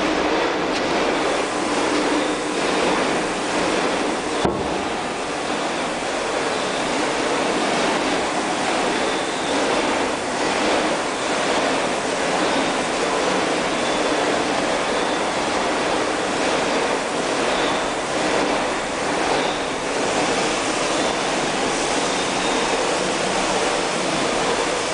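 Steady, even mechanical noise of workshop machinery, with a faint high whine over it and a single knock about four and a half seconds in.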